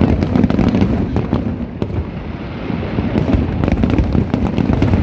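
Aerial fireworks going off in rapid succession: many sharp bangs and crackles over a continuous low rumble of booms.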